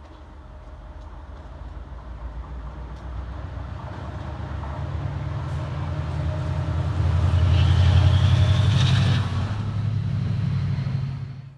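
Diesel locomotive approaching and passing close by, its engine hum and the rumble of wheels on rails growing steadily louder to a peak about eight seconds in.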